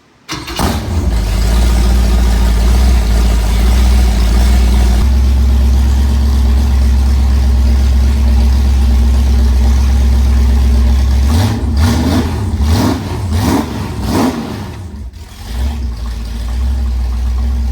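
Jet boat's big-block Chevy V8 coming to life abruptly and running at a steady idle. It is blipped three times about twelve to fourteen seconds in, dips briefly, then settles back to idle. It is running after a valve adjustment with a fault the crew can hear but not name, and which they take as a sign the engine must come out.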